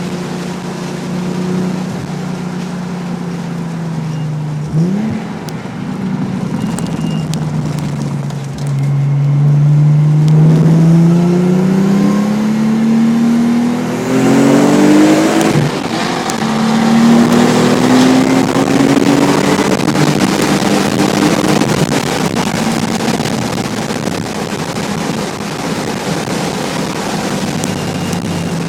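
Nissan 300ZX's 3.0-litre V6 through an aftermarket Specialty Z exhaust, driven on track. The engine note sags and gives a short blip, then climbs under hard acceleration, drops sharply at an upshift about halfway through, climbs again and eases off near the end.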